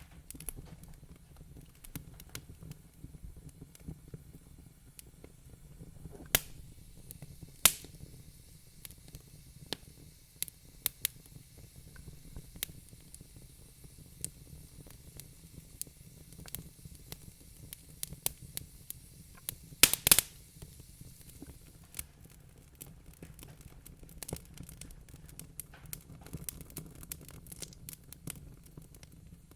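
Wood fire crackling: frequent small pops and snaps over a low steady rumble. A few pops are louder, the loudest a quick cluster about twenty seconds in.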